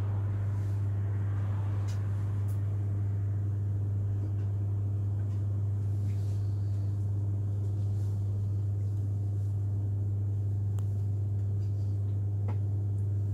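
A steady, unchanging low hum with a few faint clicks over it.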